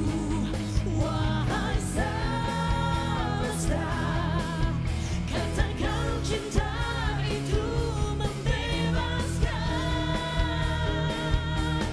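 A woman singing long held notes with a wavering vibrato, with pop band backing and a steady beat.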